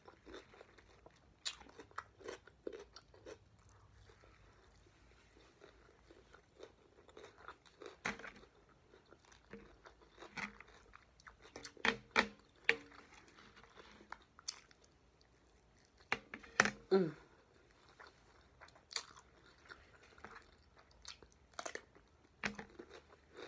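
Close-up eating sounds: wet chewing with irregular crisp crunches and bites, including bites of a whole raw cucumber, the loudest crunches about halfway through and a few seconds later.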